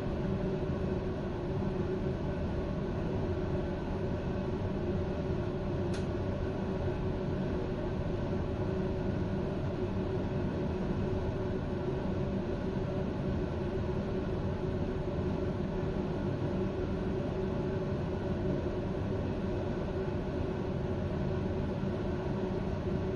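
Steady hum and whirr of a standing electric passenger train's onboard equipment, heard from inside the train. A short high tick comes about six seconds in.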